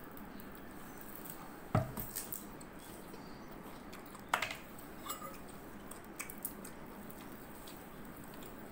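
A plastic jar and a spoon being handled: two sharp knocks, about two seconds and four and a half seconds in, then a few light clicks as the jar's plastic screw lid is opened and a metal spoon goes into the jar.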